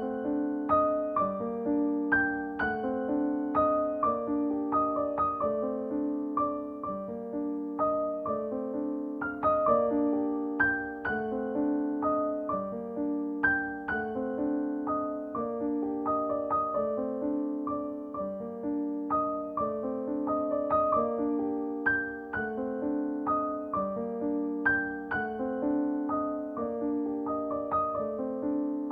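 Gentle background piano music: a steady stream of plucked-sounding notes over held lower notes, repeating in a short cycle.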